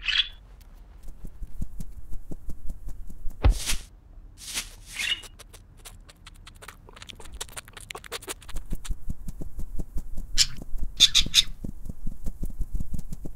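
Cartoon sound effects of two caged budgies squabbling: short squawks, a heavy thud about three and a half seconds in, then a long run of quick clicks broken by a few short bursts of rustling.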